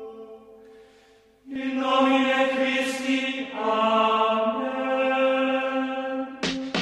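Background music of chant-like long held vocal notes. It dies away about a second in, returns louder half a second later and shifts pitch midway. Just before the end, sharp drum hits cut in as a beat-driven track starts.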